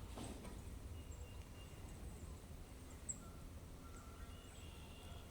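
Quiet lakeside ambience: a low steady rumble with faint, short bird chirps scattered through, and one small click about three seconds in.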